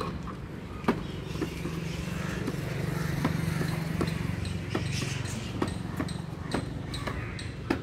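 Hard plastic wheels of a toddler's ride-on toy bike rolling over brick paving: a low rumble, with irregular clicks and knocks as the wheels jolt over the joints between the bricks.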